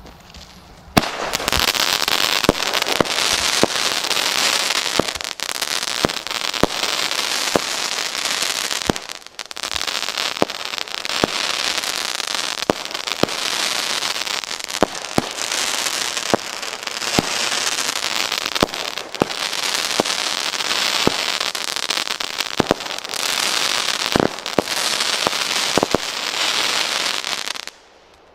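PyroProdukt 7-16 Crackling Crossette firework battery (400 g) firing: a string of sharp launch reports at short regular intervals over continuous dense crackling from the splitting stars. It starts about a second in and stops abruptly near the end.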